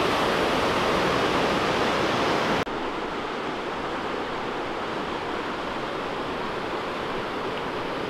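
Waterfall rushing, a steady hiss of falling water. About two and a half seconds in it cuts suddenly to a quieter, duller rush of the river below.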